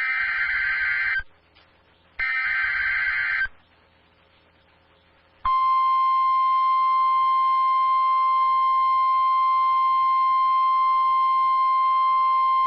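Emergency alert data bursts, the buzzy SAME header squawks, sounding twice for about a second each. About two seconds later the steady single-pitched NOAA Weather Radio warning alarm tone comes on and holds, signalling that a warning message follows.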